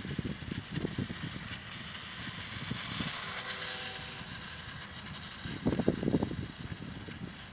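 Street traffic noise: vehicles running past on the road, a low rumble with a high hiss. A vehicle's engine note comes through faintly in the middle, and a louder surge of rumble comes near the end.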